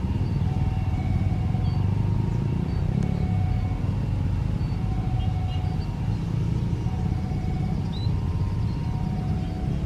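Steady low rumble of road traffic and a taxiing Boeing 737's jet engines, with a faint engine whine coming and going. There are scattered faint bird chirps.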